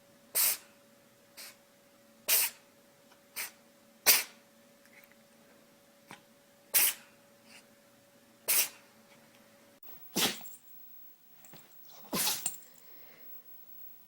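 Pets sneezing over and over: short, sharp sneezes about every two seconds, with a few fainter ones in between.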